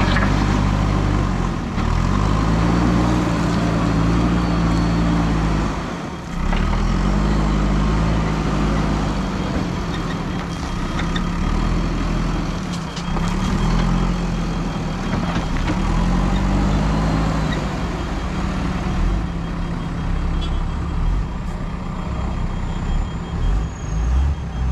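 Diesel engine of a JCB 3DX backhoe loader working under load, revving up and falling back again and again as it scoops and lifts its front bucket.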